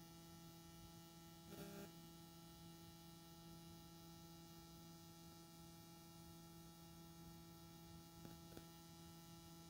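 Near silence: a faint steady electrical hum with a thin buzz of higher tones, left where the recording's audio has failed. There is a faint brief noise about a second and a half in and another near the end.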